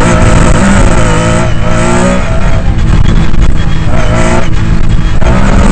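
Lancia Stratos rally car's engine heard from inside the cockpit, revving hard up through the gears: the pitch climbs, drops at a gear change about two seconds in, climbs again and drops at further shifts near the end.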